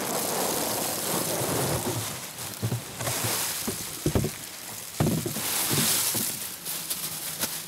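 Dried, dehydrated bread chunks poured out of a cardboard box and then a plastic bag, pattering in a steady rain-like rush onto a pile on the forest floor, with a few sharper knocks among them.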